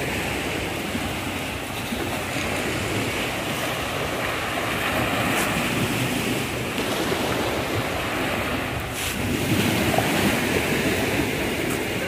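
Sea waves washing onto the shore in a steady, continuous rush, with wind blowing across the microphone.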